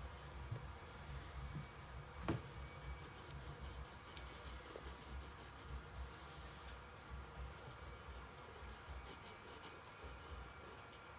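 Faint pencil scratching on sketchpad paper, in quick short strokes that grow busier in the second half, with a single sharp knock about two seconds in.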